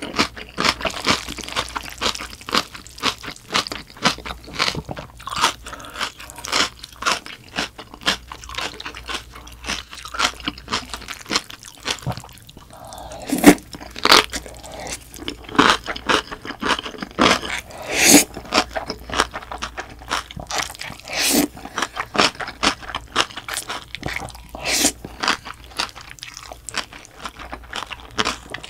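Close-miked eating of spicy bibim noodles with young-radish kimchi: a rapid run of crisp crunching and chewing, with a few louder noodle slurps a little under halfway through and again soon after.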